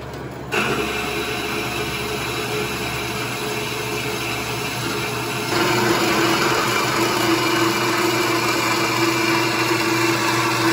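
JET horizontal metal-cutting band saw running, its blade cutting through a steel bar. The cutting noise starts about half a second in and gets louder about halfway through, with a steady ringing tone.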